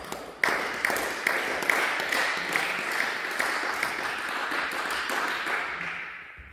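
Spectators applauding as a table tennis game ends, with one person's loud claps standing out at about two a second over a steady patter of clapping that fades away near the end.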